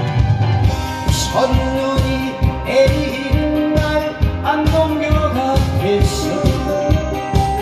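A man singing a Korean trot song into a microphone over loud amplified backing music with a steady beat of about two strokes a second; his voice comes in about a second in.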